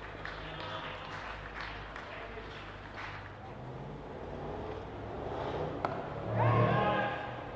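A single sharp knock of cricket bat on ball about six seconds in, followed at once by a loud shout from the fielders as the batter is caught out. Quieter calls from the players come before it.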